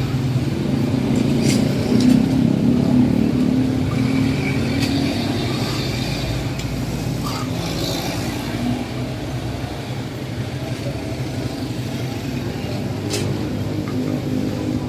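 A motor vehicle engine running steadily, a low hum that is loudest a couple of seconds in and eases slightly after.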